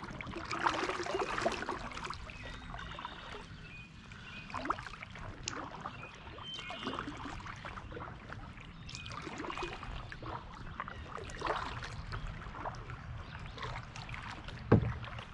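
Kayak paddle strokes dipping and splashing in the river, a stroke every two seconds or so with water dripping between them. One loud sharp knock near the end.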